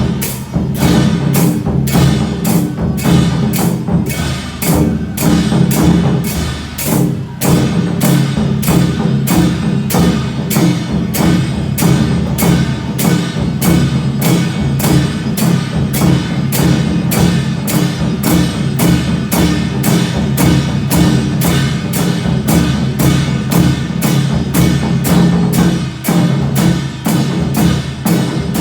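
Temple procession music: percussion struck in a steady, even rhythm, about two to three strikes a second, over sustained lower tones.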